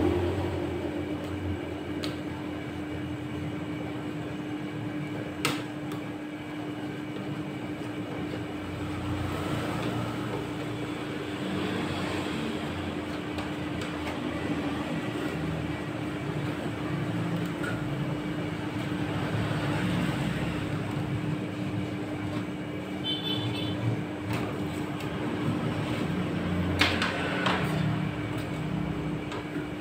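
Rolled-ice-cream machine's refrigeration unit humming steadily on one tone, with metal spatulas scraping across the frozen plate as ice cream is spread and scraped up into rolls, and a few sharp taps of the spatulas.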